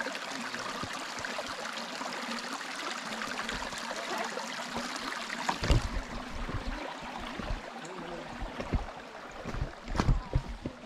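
A small creek running steadily, an even rush of water. From about halfway through, low thumps come in, with a sharp click near the end.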